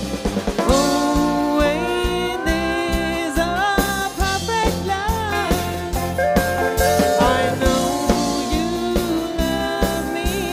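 Live country band playing an instrumental passage: a drum kit keeps a steady beat under a lead guitar line of held notes that bend up and down.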